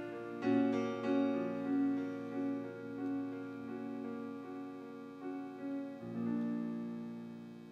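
Instrumental music of sustained chords, changing about half a second in and again about six seconds in, growing softer near the end.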